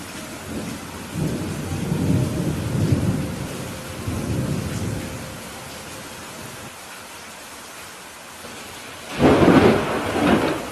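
Steady rain with a low rolling rumble of thunder for a few seconds near the start, then a louder, sharper thunderclap about nine seconds in.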